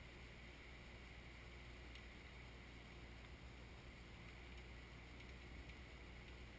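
Faint, steady drone of the Kioti 3054 compact tractor's diesel engine running at a distance while its backhoe works.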